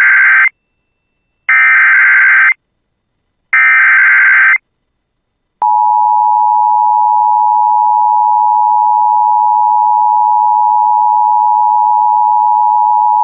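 Emergency Alert System SAME header: three bursts of digital data tones, each about a second long and a second apart. Then, about five and a half seconds in, the steady two-tone EAS attention signal comes on and holds, announcing an incoming severe thunderstorm warning.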